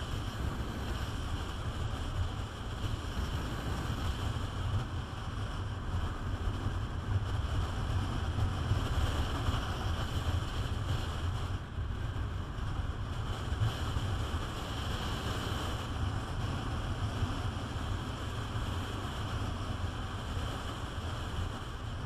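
Wind rushing and buffeting over the microphone of a Peugeot Metropolis 400 scooter riding at road speed, with the scooter's running and road noise beneath it. The sound is a steady, heavy rumble with no breaks.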